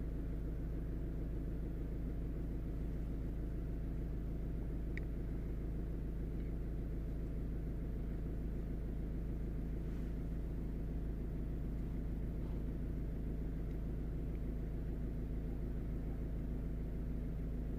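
2010 Mazda 3's 1.6 litre four-cylinder diesel engine idling steadily.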